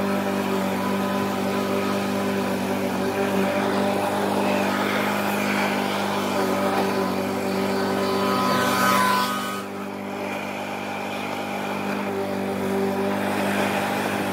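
Lawn mower engine running at a steady speed. About nine seconds in, a brief rising whine comes through, and the sound then drops a little in level and loses some of its hiss.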